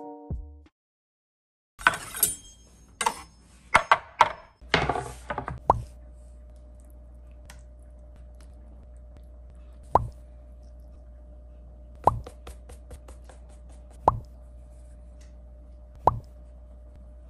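A quick run of clinks and taps, then raw chicken thighs plopped down one at a time on a wooden cutting board: a single wet slap about every two seconds, over a steady low hum.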